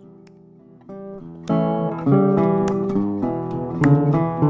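Instrumental background music with strummed guitar; quiet at first, then louder from about a second and a half in, with repeated strums.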